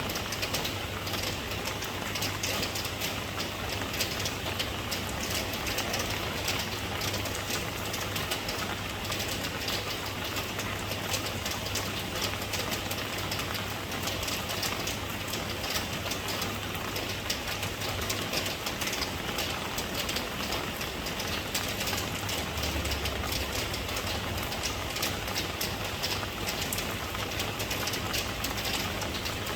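Steady rain falling, a dense continuous patter of drops with a low steady rumble underneath.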